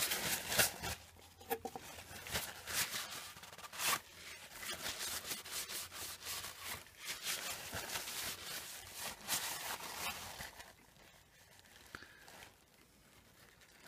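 Paper towel crinkling and rubbing in irregular scrubbing strokes as the steel spindle of a Record CL4 lathe is wiped clean. It dies down about three seconds before the end.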